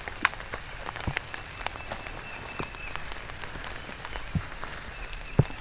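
Steady rain, with individual drops hitting a surface close by in irregular sharp ticks, a few louder strikes among them.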